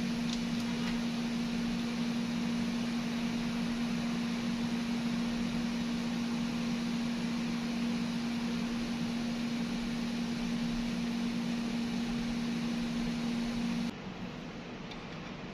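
Steady low electrical hum with a hiss over it, like a small fan-driven machine running, dropping away abruptly near the end.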